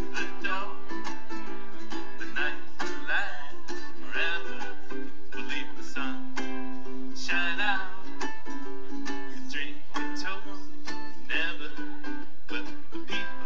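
Ukulele music played live: steady strummed chords with a higher, wavering melody line over them.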